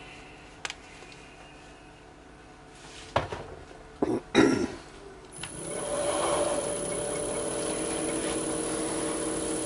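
A few knocks of handling, then about five seconds in a wood lathe is switched on, spins up over half a second and runs steadily with a motor hum and a high whine, turning a pen blank on its mandrel for friction polishing.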